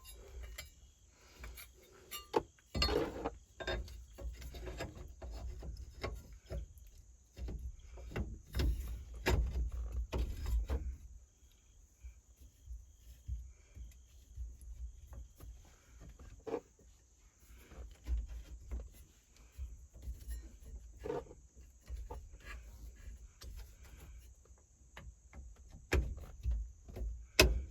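Small metal parts of a steering column being handled and fitted by hand: scattered clicks, taps and knocks, busier in the first half, with a sharper knock near the end.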